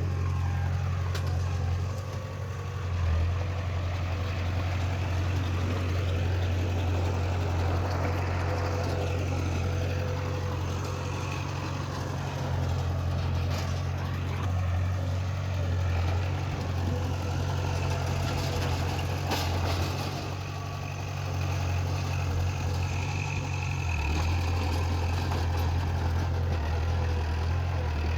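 Heavy diesel earthmoving machinery running steadily with a deep engine drone, its level dipping briefly about two seconds in and again past the middle.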